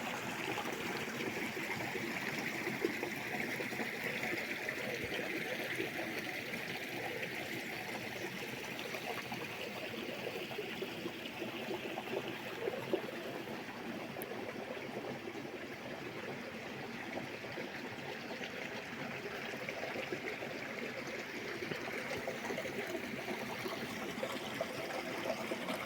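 Stream water running steadily, an even rushing and trickling with no breaks.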